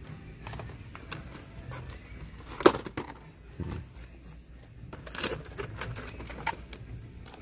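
Hard clear-plastic blister packs of toy figures clicking and clacking as they are handled and taken on and off pegboard hooks. A sharp clack comes nearly three seconds in, with more scattered clicks after about five seconds.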